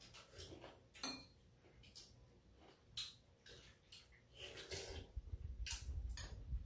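Spoons and chopsticks clicking lightly against bowls now and then as two people eat soup and side dishes, with soft chewing and sipping. A low muffled rumble comes in for the last couple of seconds.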